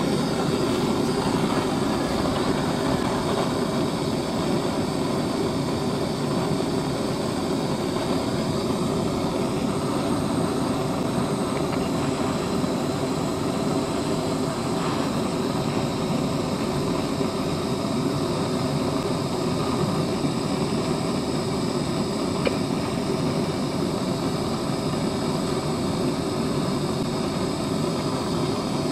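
Handheld gas blowtorch flame roaring steadily as it plays on plastic pens, with one small pop late on.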